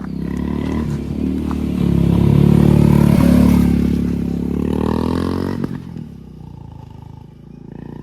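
Royal Enfield Classic 350's single-cylinder engine accelerating hard on the move, rising to its loudest about halfway through, then falling in pitch and cutting back sharply near the six-second mark as the throttle is closed, running on quietly afterwards.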